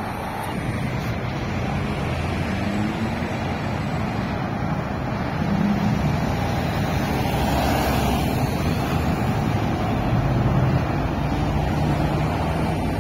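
Road traffic on a busy multi-lane city street: several car engines running and tyres passing, a steady hum with engine notes swelling now and then.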